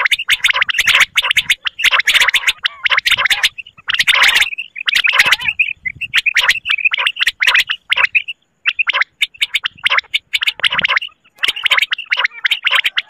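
Recorded common quail (batair) calls played as a hunting lure: bursts of rapid rattling notes, each about a second long, with short breaks between them.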